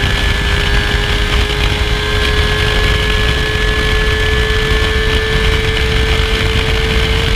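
Yamaha R25's parallel-twin engine on its stock exhaust, running steadily. A whine slowly rises a little in pitch and drops back just before the end.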